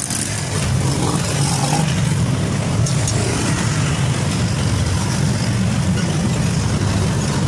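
Steady low rumble of vehicle and road noise, holding an even level with no rise or fall in pitch.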